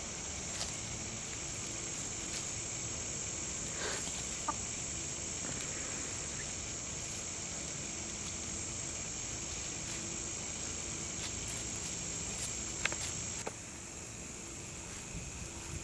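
Hens foraging, with a few short soft clucks now and then. A steady high-pitched hiss runs underneath and stops abruptly about two seconds before the end.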